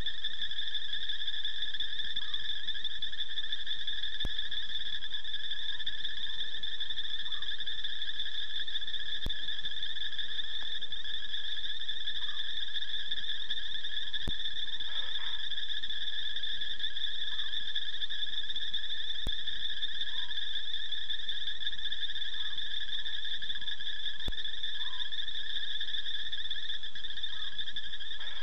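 Night chorus of insects and frogs: a steady, unbroken high trilling, with short chirps every second or two.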